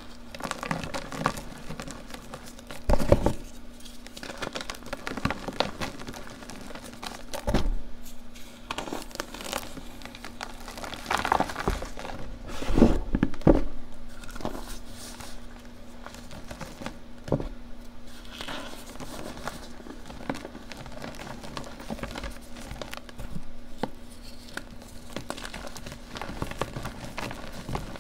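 Hands crushing molded gym chalk blocks into powder: a steady run of soft crunches and crackles, with several louder crunches scattered through, the biggest about three seconds in and around the middle.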